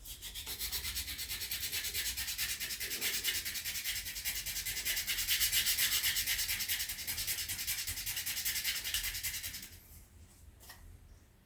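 Sandpaper rubbed by hand over a wooden rifle stock in quick, even back-and-forth strokes, stopping near the end.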